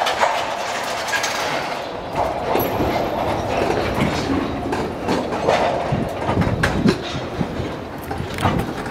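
Freight train of tank cars rolling past, its steel wheels clacking over the rail joints in an uneven run of knocks over a steady rolling noise.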